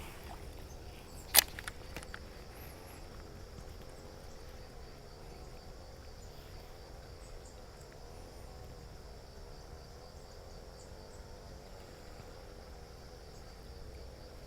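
Steady outdoor insect chorus, with one sharp click about a second and a half in.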